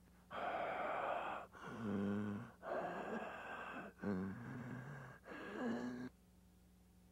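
A person voicing a monster: five heavy, rasping breaths in a row, several with a low growling groan, stopping about six seconds in.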